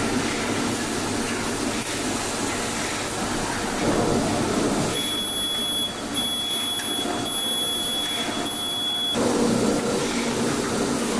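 Steady machine and air-handling noise of an electronics assembly floor. About halfway through, a high electronic beep sounds several times in a row for about four seconds.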